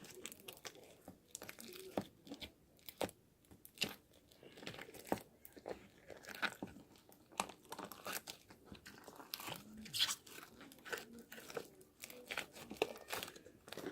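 Plastic packaging being handled and opened, with irregular crinkling and crackling and sharp little clicks.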